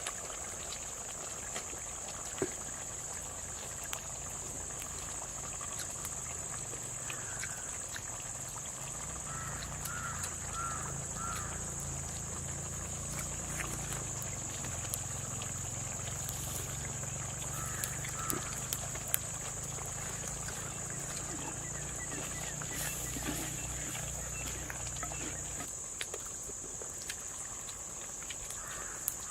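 Forest ambience: a steady high-pitched drone of insects, with a few short chirping calls and scattered small clicks. A low rumble runs under most of it and stops about 26 seconds in.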